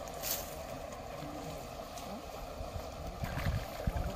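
Handling thumps and a light splash of pond water as a freshly caught fish is lowered into a keep net at the water's edge, with a sharp click about a third of a second in and the louder thumps near the end, over a steady background hum.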